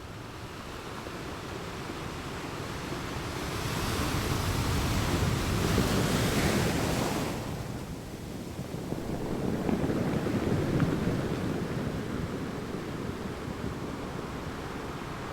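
Mediterranean sea waves surging and breaking against rocks, swelling into a loud wash twice, with wind buffeting the microphone.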